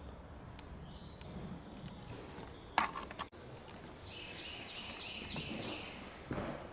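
Footsteps on old wooden floorboards, with a sharp knock about three seconds in and another near the end.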